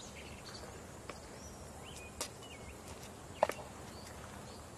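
Faint outdoor ambience with scattered bird chirps and two short, sharp knocks, about two and three and a half seconds in.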